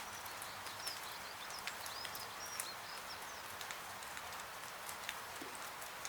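Steady rain hiss sprinkled with sharp crackling clicks, and a bird chirping several short high notes during the first half.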